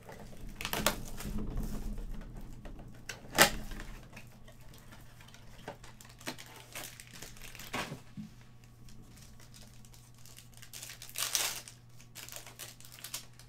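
Cardboard trading-card blaster box being opened by hand and its foil card packs handled and torn: scattered clicks, scrapes and knocks, a sharp knock about three and a half seconds in, and foil crinkling near the end.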